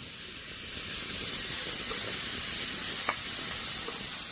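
Food sizzling steadily in a hot pan, with a few faint ticks and a single sharp click about three seconds in.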